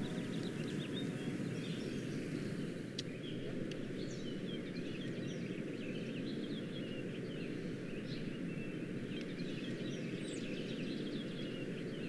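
Outdoor ambience: a steady low rumble of background noise with many small birds chirping throughout.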